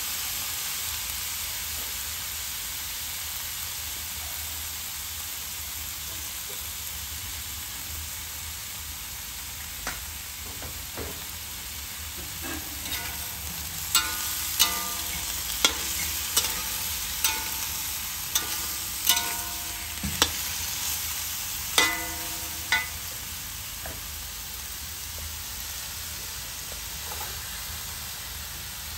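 Frog meat sizzling steadily in oil in a black metal wok while a metal spatula scrapes and turns it. From about halfway there is a run of about ten sharp clangs of the spatula against the wok, each ringing briefly.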